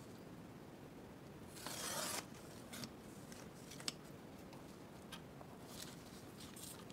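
Paper trimmer's sliding blade drawn once along its rail, slicing through a sheet of paper in a stroke of about half a second. A sharp click follows a couple of seconds later, then light paper rustling as the sheet is handled.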